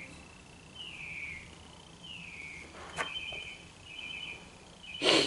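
A bird calling: short falling chirps about once a second, then quicker stuttering chirps in the second half. A small click comes about three seconds in, and a loud sharp knock just before the end.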